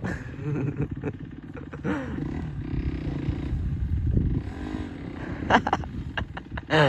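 Dirt bike engine revving up and down under load on a steep hill climb. Near the end come a couple of short, sharp louder sounds.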